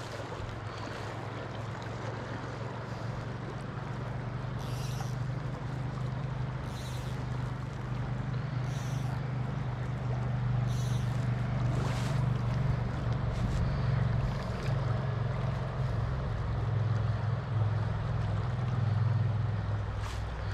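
Steady rush of flowing creek water with a low, wavering rumble of wind on the microphone.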